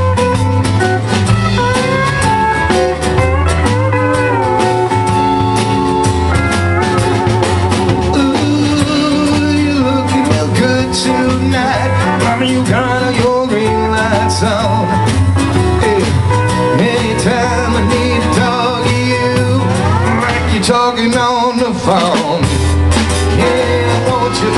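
Live band playing an instrumental break of a blues song: drums and a steady low beat under electric guitar and steel guitar lines that slide up and down in pitch.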